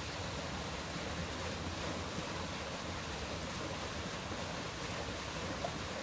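Artificial waterfall, with water pouring in thin sheets down a stone wall and splashing at its base: a steady, even rushing.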